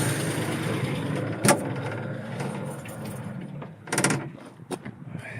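A running motor dies away after being switched off, its noise fading over about three seconds. Then come a click, a short knock about four seconds in, and another click.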